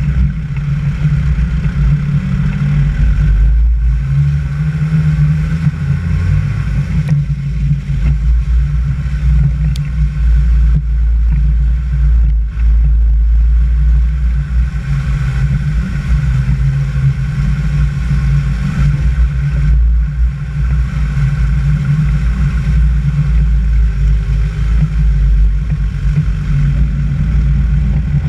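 Vehicle driving along a muddy dirt track: steady engine drone under a heavy low rumble, with no break.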